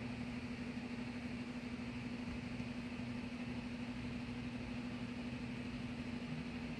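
Steady machine hum: one constant low tone over a faint even hiss, with no change in pitch or level.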